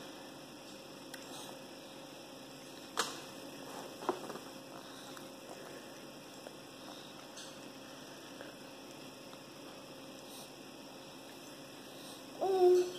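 Steady faint electrical hum, with a couple of light taps on a plastic high-chair tray about three and four seconds in. Near the end comes a short pitched squeak, the loudest sound.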